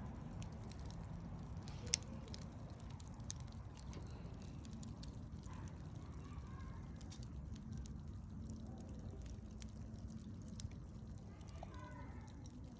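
Wood campfire crackling, with scattered sharp pops over a steady low rumble and one louder pop about two seconds in. Faint pitched calls sound in the background near the middle and again near the end.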